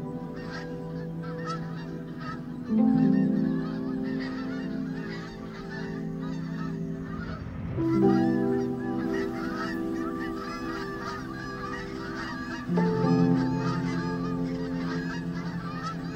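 A flock of Canada geese honking, the calls getting busier about halfway through as the flock takes off. Soft background music with held chords that change every few seconds runs underneath.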